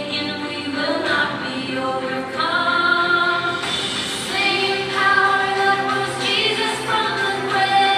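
Music: a song sung by a group of voices together.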